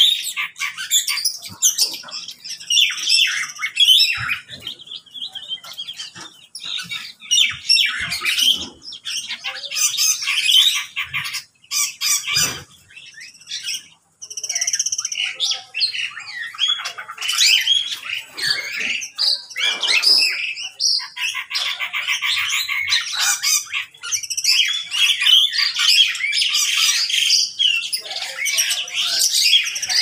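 A mixed aviary flock of parakeets, lovebirds, cockatiels and other small cage birds chirping and squawking over one another, high and shrill, with a brief lull about thirteen seconds in.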